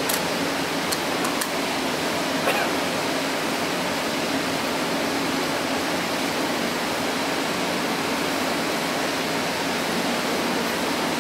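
EP09 electric locomotive standing at the platform with its ventilation blowers running: a steady rushing hiss over a low hum. A few faint clicks come in the first second or so.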